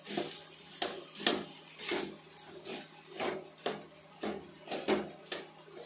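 A metal ladle or spoon scraping and tapping on a dosa griddle in short strokes, roughly two a second, while dosa batter is spread on it.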